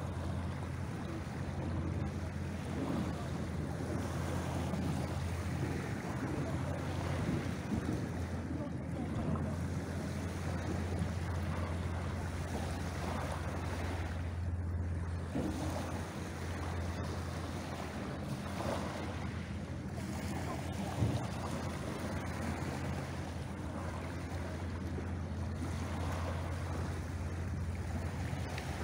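Small waves lapping and washing onto a pebble beach in gentle swells, over a steady low rumble of wind on the microphone.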